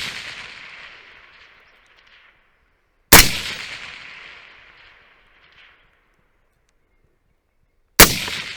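Suppressed AR-15 short-barreled rifle firing two single shots about five seconds apart, each shot followed by a long echo that fades over about two seconds. The echo of an earlier shot is still fading at the start.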